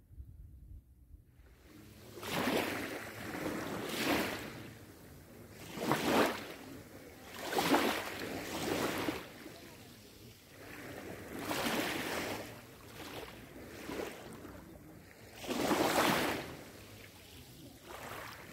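Small waves lapping and breaking on a pebbly, seaweed-strewn shore, each wash of surf swelling and fading, about one every two seconds. The waves begin about a second and a half in, after a near-quiet start.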